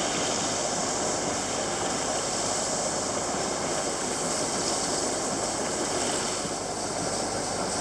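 Steady rush and hiss of sea water streaming past a sailboat's hull as it sails along.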